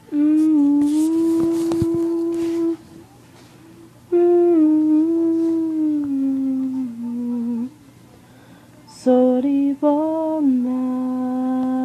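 A person humming a slow tune in three long phrases of held, gently stepping notes, with short pauses between them.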